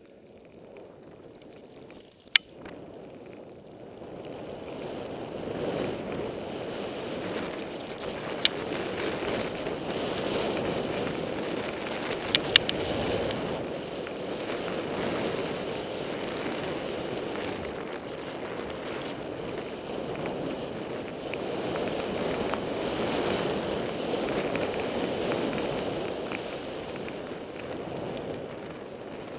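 Vectorglide Butterknife skis running through deep fresh powder, with wind rushing over a goggle-mounted camera's microphone; the rushing swells and eases with speed. A few sharp clicks sound about 2 and 8 seconds in and twice around 12 seconds.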